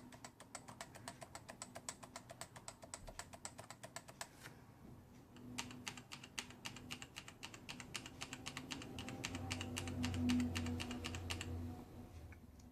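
Keys on two keyboards, one with Topre switches and one with Razer Orange tactile switches, pressed hard in fast, even runs of clicky strokes. There are two runs, with a short pause about four and a half seconds in.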